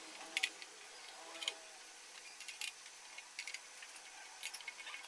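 Short, sharp metallic clicks and ticks at irregular intervals, about half a dozen, from a socket wrench extension and metal fittings as the fuel pump's mounting bolts are undone on a motorcycle fuel tank.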